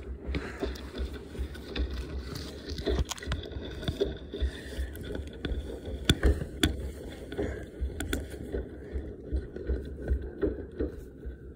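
Handling noise from a phone's microphone held against a tracksuit sleeve: fabric rubbing and scraping with a constant low rumble, and scattered knocks, the sharpest two close together about six seconds in.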